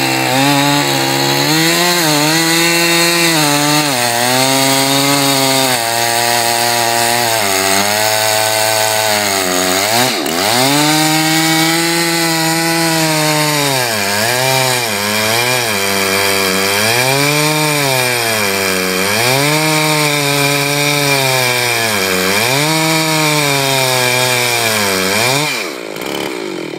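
Husqvarna two-stroke chainsaw at full throttle ripping lengthwise along the grain of a large log. The engine pitch sags and recovers every second or two as the bar is pressed into the cut. It dips and revs back up about ten seconds in, and its speed drops away near the end.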